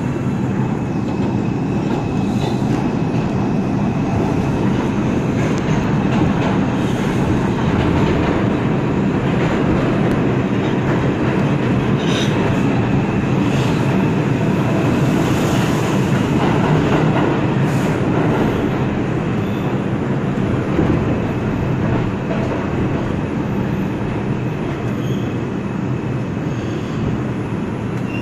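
An R142 New York City subway car running along the track, heard from inside the car: a steady rumble of wheels on rail, with a few sharp clicks over the joints and a faint high steady whine.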